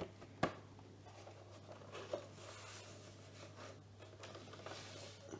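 Faint handling sounds of a small plastic Casio mini keyboard being turned over in the hands: light rustles and taps, with one sharp click about half a second in and a softer knock about two seconds in. No notes are played.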